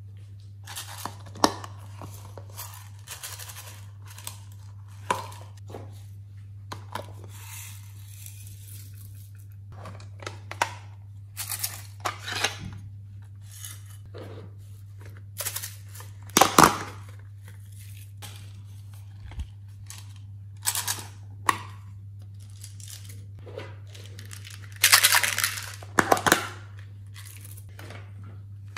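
Plastic glitter containers being handled, opened and shaken, with glitter and sequins sprinkled onto slime in a glass dish. It comes as a series of short clicks, taps and rustles, with a louder burst of rustling near the end, over a steady low hum.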